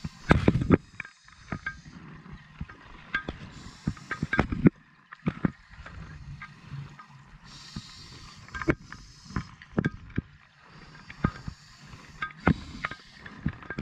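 Scuba diver breathing through a regulator underwater: a hiss on each inhale about every four seconds, alternating with bubbling as exhaled air escapes, and many sharp clicks throughout.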